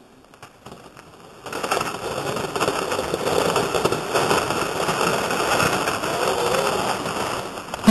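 A sled being pushed off and sliding over snow: a loud, crackling, scraping rush of noise starts about a second and a half in and runs on steadily.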